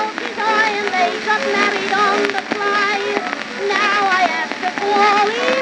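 Early acoustic 78 rpm shellac disc playing a music hall song: a soprano singing the last lines of the chorus with a small orchestra. The sound is thin and narrow in range, with crackle and hiss from the record's surface.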